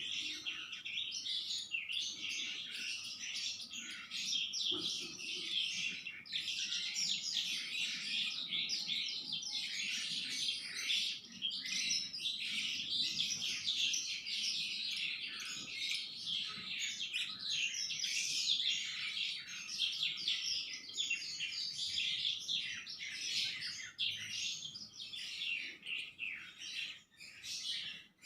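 A pet sanma songbird singing non-stop, pouring out a rapid, varied stream of high chirping notes with barely a pause.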